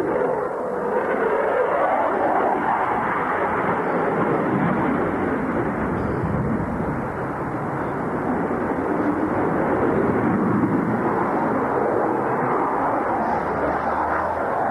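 Fighter jet's engines heard from the ground as it manoeuvres through a flying display: a loud, continuous rushing noise whose level swells and eases, with slow sweeps in pitch.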